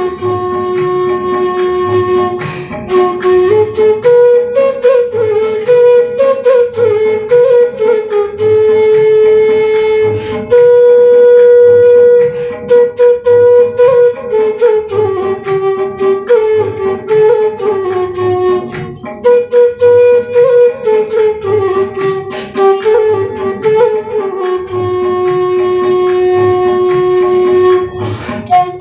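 Tula, a side-blown bamboo flute, playing a slow, mournful song melody with long held notes, over a low, regular beat.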